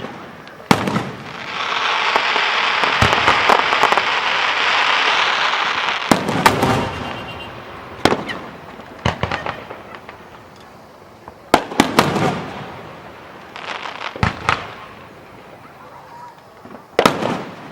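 Fireworks display: aerial shells bursting with sharp bangs every few seconds, and a dense crackling hiss lasting several seconds after an early burst.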